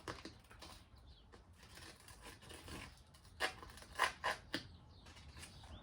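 Skateboard grip tape being cut to length: a few short, sharp rasping strokes of the blade through the gritty tape, bunched a little past the middle.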